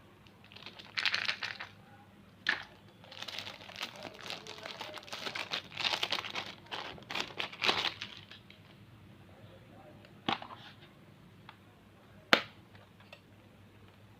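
Foil wrappers of Kinder Surprise chocolate eggs crinkling and tearing in bursts for several seconds, followed by a couple of sharp clicks near the end.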